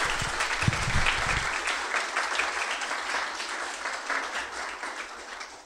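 Audience applauding, the clapping tapering off toward the end.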